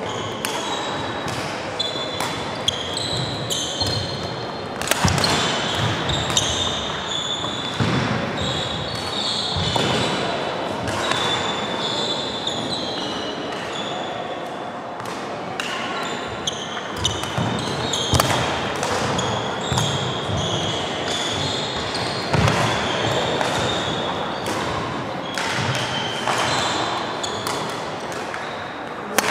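Badminton rally in an echoing sports hall: sharp racket strikes on the shuttlecock, footfalls thudding on the sprung wooden court, and trainers squeaking in short bursts as the players change direction.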